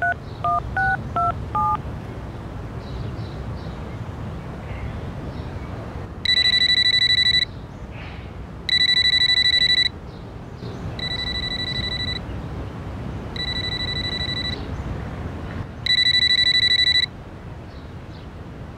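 Touch-tone keypad beeps as a phone number is dialed, then a cordless home telephone ringing: five electronic rings about a second long, roughly every two and a half seconds, for an incoming call.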